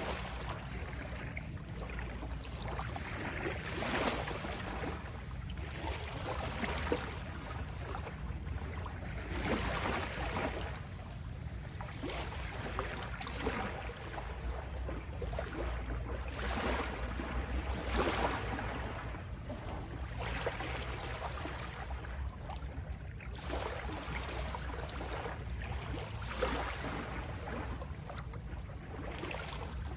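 Small sea waves lapping and rippling against the shore, washing in every couple of seconds, over a steady low rumble.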